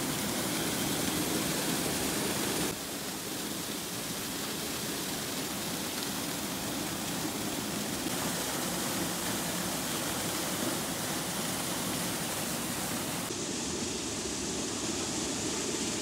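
Small waterfall spilling over a concrete ledge into a rocky pool: a steady rush of falling and splashing water. Its tone changes abruptly about three seconds in and again near the end.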